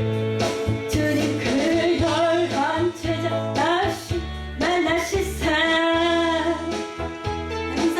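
A woman singing a Korean worship song over guitar accompaniment.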